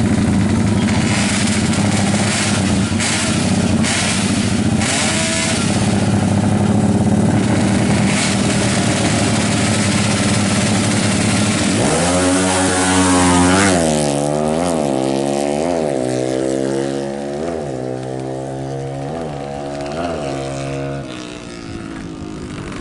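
Bored-up Honda Tiger single-cylinder four-stroke drag-bike engine running steadily, then revved up sharply about halfway through and blipped up and down about once a second before dropping back near the end.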